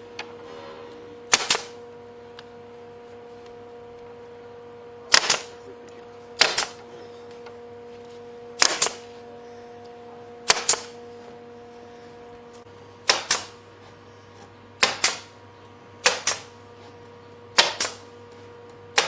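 Sharp knocks on wood, about ten at uneven gaps of one to two and a half seconds, each a quick double strike, over a faint steady hum.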